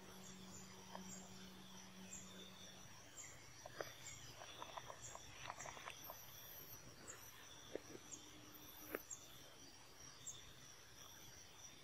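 Faint natural ambience: a short, high chirp repeating every half second to a second over a steady high hum, with scattered faint clicks through the middle.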